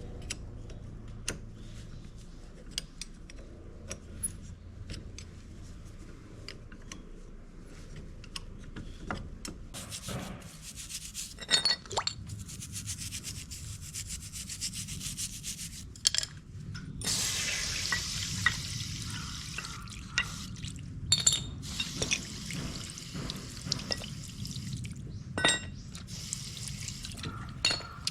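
Hand work on scooter front-brake parts: metal pieces clicking and clinking, and parts being rubbed and scrubbed clean. The rubbing grows louder for a few seconds a little past the middle.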